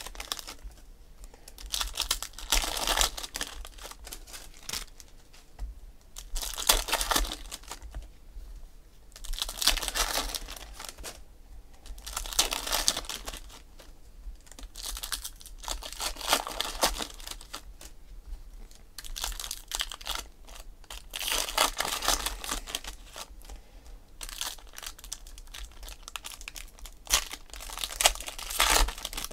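Foil trading-card packs crinkling and being torn open by hand, in bursts every few seconds with quieter handling of the cards between.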